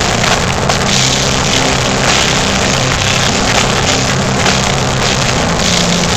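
Live metal band playing loud and without a break: distorted guitars and bass holding low notes that change every second or so, over a dense wash of drums and cymbals. The recording has bad sound quality and comes out muddy and overloaded.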